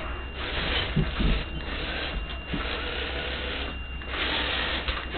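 Motorised LEGO Crystal Reaper running on Power Functions motors, its plastic gears and drive whirring and grinding in several surges that come and go.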